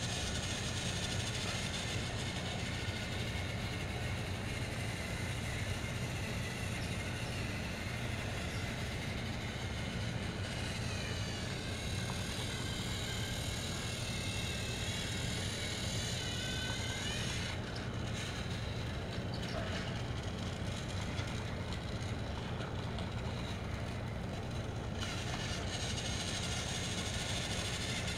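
Battery-operated Thomas & Friends TrackMaster toy train running on plastic track, its small electric motor and gears whirring steadily. Its pitch wavers for several seconds in the middle as it climbs the steep incline.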